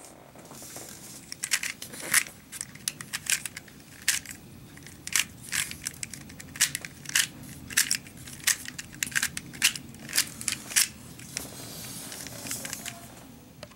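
Rubik's Cube being turned by hand through a pattern algorithm: its plastic layers clack and click sharply, one turn after another at an uneven pace.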